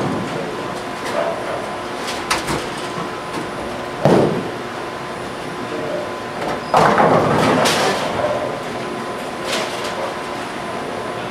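Bowling alley sound: a steady hum of lane machinery and pinsetters with scattered knocks, a low thump about four seconds in, and a longer clattering crash of pins about seven seconds in.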